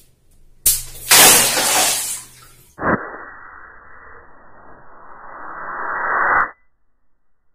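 A large water-filled latex balloon bursts with a sudden pop a little under a second in, and the water splashes down for about two seconds. Then a second, duller rushing splash starts sharply, swells for a few seconds and cuts off suddenly.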